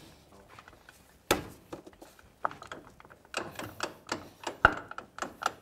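Metal clicks and clunks as a Polaris RZR XP 900's driven clutch is pushed and worked onto its splined transmission shaft. One sharp knock comes a little over a second in, then a run of irregular clunks in the second half, the sharpest near the end.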